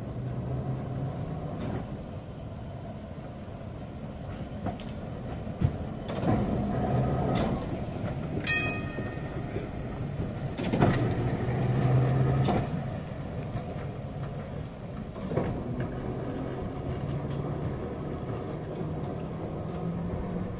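Heritage tram running on its rails: a steady low rumble with scattered clicks, swelling louder twice, and a single short metallic ring about eight seconds in.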